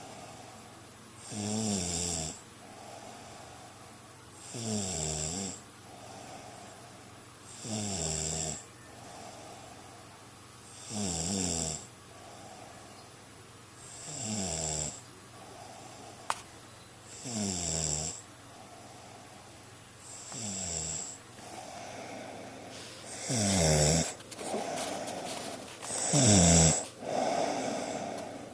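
A person snoring in their sleep: a snore on each breath roughly every three seconds, each dropping in pitch, with softer breathing between. The snores grow louder near the end.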